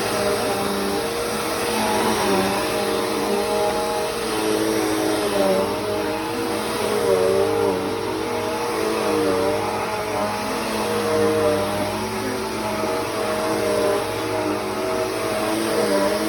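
Bissell CleanView 3536 upright vacuum cleaner running steadily, its motor pitch wavering up and down slightly.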